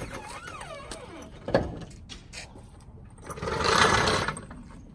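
Floor jack being let down under a pickup's front end, with a sharp knock about a second and a half in. Near the end comes a louder rushing noise lasting about a second.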